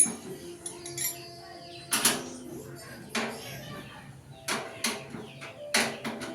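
Irregular knocks and clanks, about eight over a few seconds, some leaving a brief ring: parts of a sewing machine stand being handled and fitted together.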